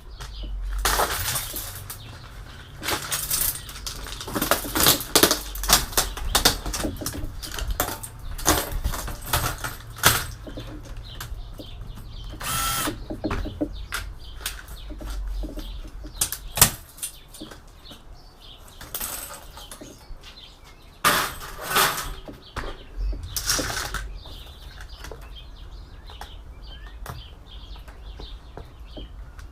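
Irregular clicks, knocks and scrapes of hand tools on metal and plastic parts as an all-in-one PC is taken apart, coming in bunches with short lulls.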